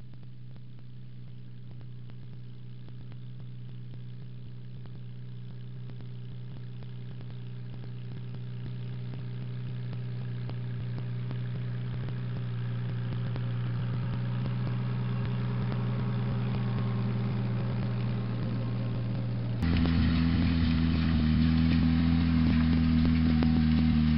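Farmall Super H tractor's four-cylinder engine running steadily while mowing hay, growing louder as it comes closer. About twenty seconds in, it gives way abruptly to a second small tractor's engine, louder and lower, as it pulls a hay rake.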